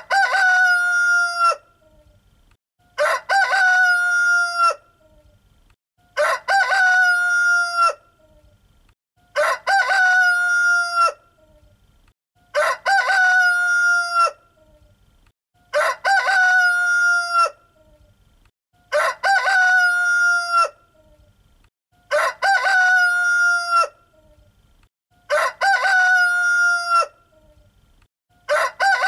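Rooster crowing a full cock-a-doodle-doo over and over: nine identical crows, each about a second and a half long, spaced about three seconds apart like a looped recording.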